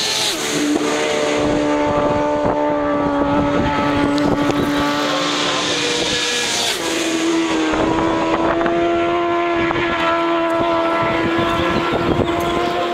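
Superbike racing motorcycles passing at high speed on full throttle. The engine note drops sharply in pitch as one goes by at the start, holds a steady note, and a second, higher engine note comes in about seven seconds in.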